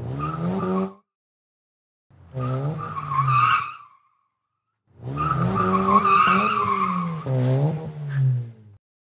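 Car engine revving in three bursts with short silences between, its pitch climbing and falling, with a tyre screech over it.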